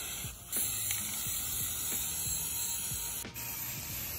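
Aerosol spray can of white Rust-Oleum paint and primer hissing steadily as paint is sprayed onto small wooden furniture, the spray breaking off briefly about half a second in and again just after three seconds.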